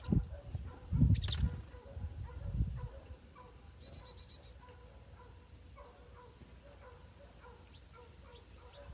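Low rumbling thumps, loudest in the first three seconds, with a sharp click just after a second in. About four seconds in comes a short high trill from a small bird at the feeder, over faint scattered calls.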